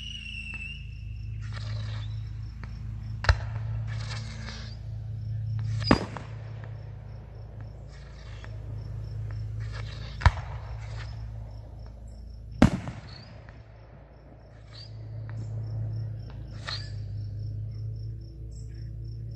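Distant consumer fireworks going off: four sharp bangs several seconds apart, with short bursts of hiss and crackle between them. A whistling rocket trails off just at the start. Under it all are a steady low hum and crickets chirping.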